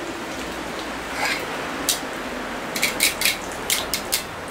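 A pair of bear-claw meat shredders clacking against each other as they are picked up and handled: a single click, then a quick run of sharp clicks near the end.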